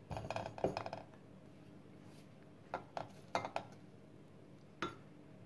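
Wooden spoon scraping butter out of a ceramic bowl into a stainless steel pot: a run of scrapes and taps in the first second, then a few light knocks of the spoon against the pot as the butter is stirred.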